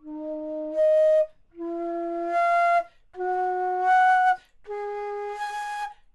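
3D-printed baroque flute (traverso) in the Tortochot model, played as four notes climbing step by step. Each note is held briefly and then overblown to the octave above, with a short break between pairs, in a tone the player calls woolly.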